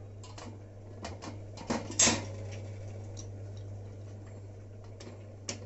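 Light clinks and knocks of a stainless-steel sev press being handled as dough is pushed into its cylinder, the loudest knock about two seconds in. A steady low hum runs underneath.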